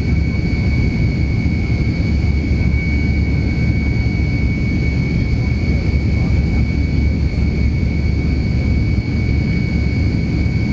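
Cabin noise of a Tupolev Tu-154M climbing after takeoff: its three tail-mounted Soloviev D-30KU-154 turbofans running steadily at climb power, a deep rumble with a steady high whine over it.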